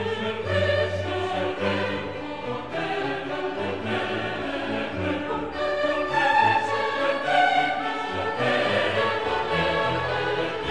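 Background music: choral voices held over an orchestral accompaniment with slow-moving bass notes.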